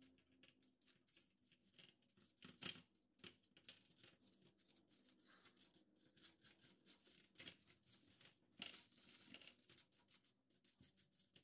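Faint, irregular scratching and rustling strokes of a silicone pastry brush spreading butter over parchment paper, with the paper crinkling under it.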